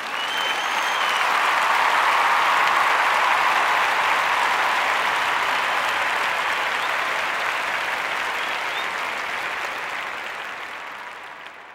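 Crowd applause that swells over the first couple of seconds and then slowly fades out.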